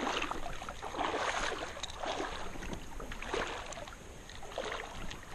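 Creek water sloshing and swishing in irregular strokes as someone wades through it, with scattered small splashes.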